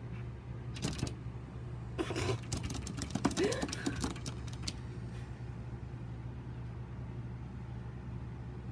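A small dog's claws scratching and tapping on a glass door: a brief scrape about a second in, then a run of quick clicks and scrabbling from about two to four and a half seconds in. A steady low hum runs underneath.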